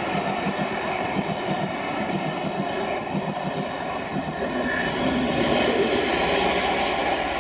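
Passenger coaches of a Pullman train rolling past at speed, their wheels beating a rhythmic clickety-clack over the rail joints. From about five seconds in the sound gets louder and deeper as the Class 67 diesel locomotive on the rear draws near.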